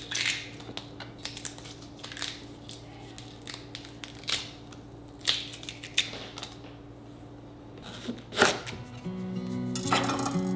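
Kitchen food-prep noises: a series of short, crisp cutting or tearing sounds a second or two apart over a steady low hum, with acoustic guitar music coming in near the end.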